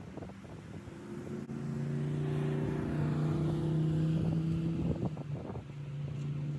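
A motor vehicle's engine hum with road and wind noise that swells to a peak about four seconds in and then eases off.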